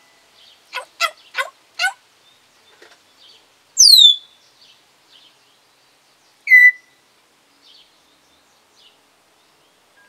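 African grey parrot calling: four short, quick calls about a second in, then a loud whistle that sweeps steeply downward near four seconds, and a short sharp whistle about six and a half seconds in.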